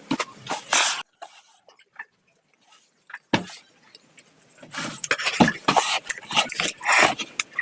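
Close-miked eating of pancit canton noodles and eggs: wet slurps and chewing smacks, a short pause, then a dense run of chewing clicks and smacks from about five seconds in.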